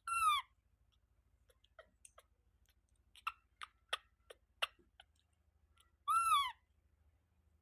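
Baby monkey giving two short, high squeaky calls, each rising and falling in pitch, one at the start and one about six seconds in; a few sharp clicks come in between.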